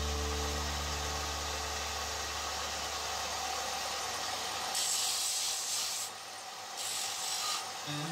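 Sandpaper rubbing on white pine in long strokes, starting about five seconds in, after the held low notes of a guitar music track fade away.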